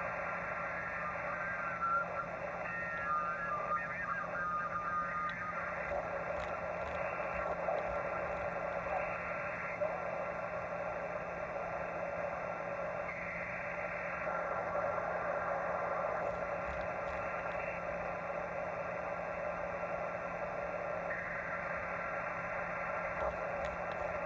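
Shortwave amateur-band receiver audio: steady static hiss through the receiver's narrow filter, crossed by several steady tones. A short run of quickly stepping tones comes a few seconds in, and soft swells of noise come and go later: the unexplained signals seen on the waterfall display.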